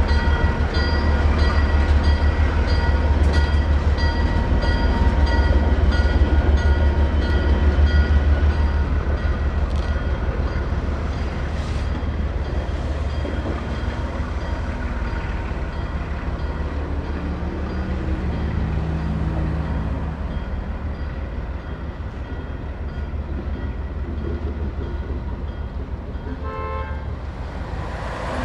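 ALCO S-6 diesel switcher's engine rumbling under load as it hauls a cut of freight cars up a street grade, with its bell ringing at about two strokes a second. The engine eases off a little after about nine seconds. A short horn toot comes near the end.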